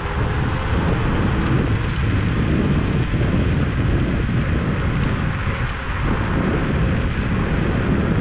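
Steady wind rush on the microphone and tyre rumble from a Kaabo Mantis Pro SE electric scooter riding along a paved path.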